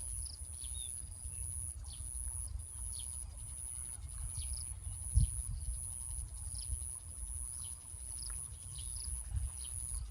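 Outdoor ambience with scattered short bird chirps over a steady high buzz and a low rumble. There is one dull thump about five seconds in.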